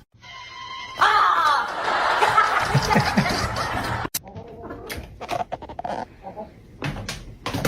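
People laughing hard for about three seconds, then scattered short knocks and clicks.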